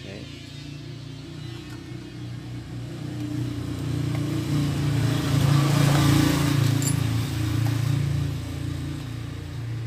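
A motor vehicle passing by: a low engine drone that swells over several seconds, loudest about six seconds in, then fades.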